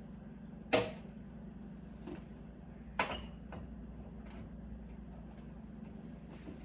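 Kitchen handling sounds: two sharp knocks, about a second in and again about three seconds in, with a few faint clicks between, as items are set down or put away, over a steady low hum.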